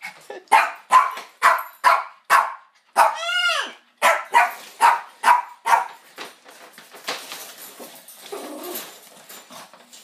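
A small dog barking repeatedly, about two sharp barks a second, with one longer yelp about three seconds in that rises and falls in pitch. After about six seconds the barking fades to softer, scattered sounds.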